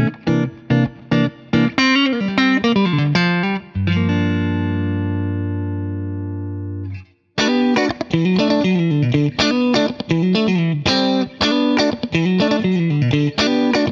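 Yamaha Pacifica Standard Plus electric guitar played clean through its Reflectone neck pickup: a picked riff, then a low chord left to ring for about three seconds before it is cut off. After a short break about seven seconds in, it picks a busy riff again on the neck and middle pickups together.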